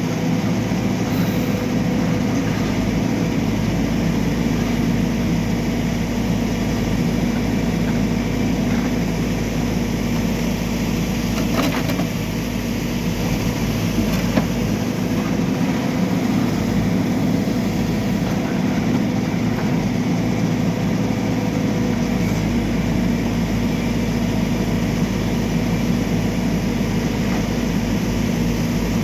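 Backhoe loader's diesel engine running steadily at a constant speed, with a brief click about fourteen seconds in.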